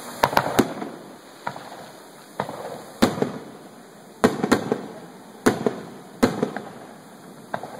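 Aerial firework shells bursting with sharp bangs, a quick run of three at the start and then one or two a second, some in close pairs, each trailing off in an echo.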